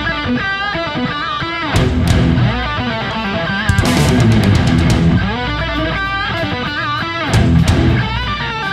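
Rock music with a heavy, distorted electric guitar playing a lead line full of bends and vibrato over bass and drums.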